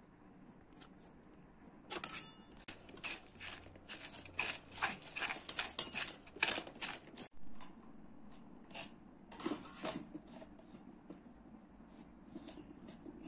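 Food-preparation handling noises, likely utensils and squash being worked: a busy run of short clicks and scrapes for several seconds, then a few scattered clicks.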